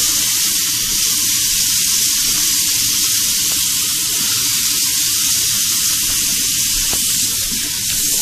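Kitchen sink faucet running, its stream splashing onto a wet cat's fur and into the sink: a steady hiss.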